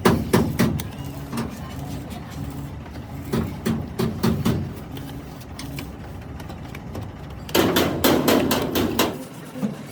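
Hand hammering on metal: groups of sharp blows, the last a quick run of about six or seven blows a second lasting a second and a half, over a steady low hum.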